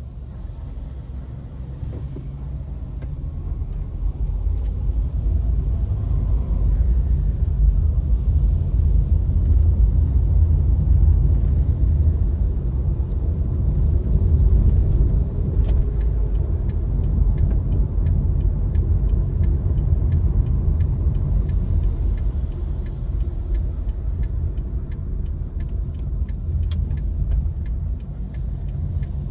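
Car driving through city streets: a steady low road and engine rumble that builds over the first few seconds, with faint scattered clicks.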